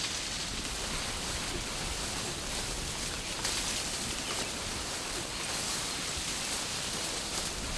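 Steady rustling and swishing of tall grass and brush as a riding elephant pushes through the vegetation at speed.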